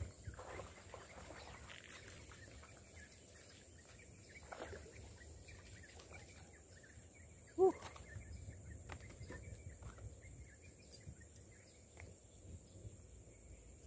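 Quiet marsh ambience with faint scattered bird chirps over a steady high hiss, and one short, louder pitched call about eight seconds in.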